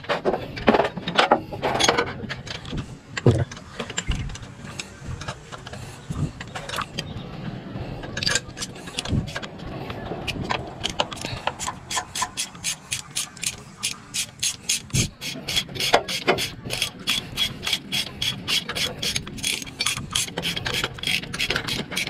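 Ratchet wrench clicking in a quick, even rhythm of several clicks a second while bolts are turned during engine reassembly. Before that, about the first third holds scattered metal knocks and clinks of hand tools.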